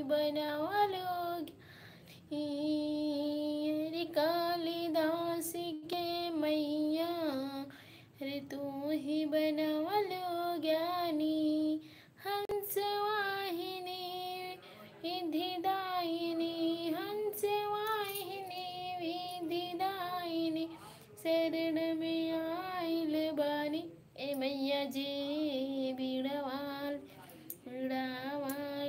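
A woman singing solo in long, wavering held phrases, breaking off for breath every few seconds.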